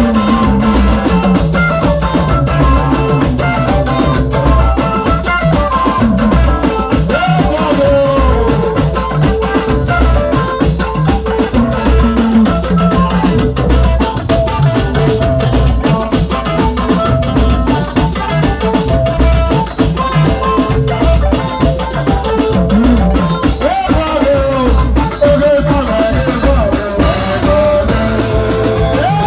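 Live band music: an electric guitar played over a drum kit, with a steady beat.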